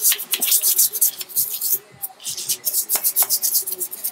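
Stiff hand brush scrubbing a greasy metal engine motor mount bracket wet with gasoline, in quick irregular strokes that pause briefly about halfway through, working the grime off the bracket.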